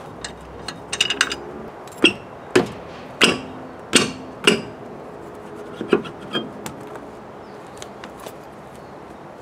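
Sharp metal clanks and knocks, about six of them half a second to a second apart, some ringing briefly, from an axle stand, a floor jack and a steel car wheel being handled as the wheel comes off its hub.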